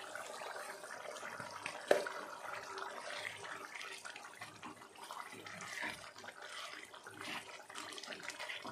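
Thin potato curry simmering in a pan, bubbling and popping as it is stirred with a silicone spatula, with one sharp click about two seconds in.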